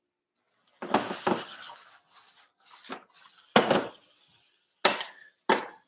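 Cookware clatter: half a dozen sharp clinks and knocks of a utensil and frying pan on a stovetop, spaced irregularly, the loudest about a second in.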